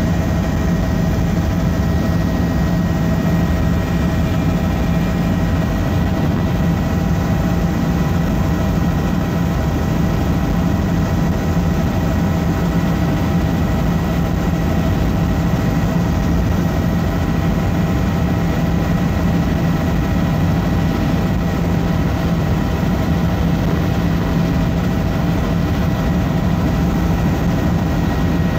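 Helicopter engine and rotor noise heard from inside the cabin in flight: a loud, steady drone with a few faint steady whines above it.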